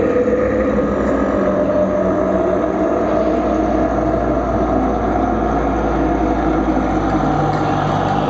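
Live electronic band music: a dense, sustained synthesizer drone with a tone slowly rising in pitch, and a deep low note that swells in about three seconds in and fades near the end.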